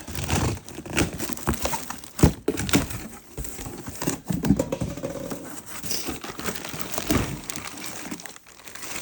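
Packing material crinkling and rustling as a tool delivery is unpacked by hand, with irregular sharp knocks from the box and its contents, the loudest a little over two seconds in.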